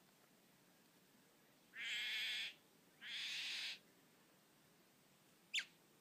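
Male satin bowerbird calling at his bower: two buzzy calls, each just under a second long, then a brief high whistle near the end.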